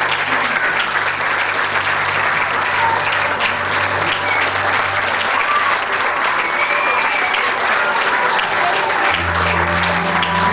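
Audience applauding steadily, with music underneath; about nine seconds in, the music's low bass notes come in more strongly.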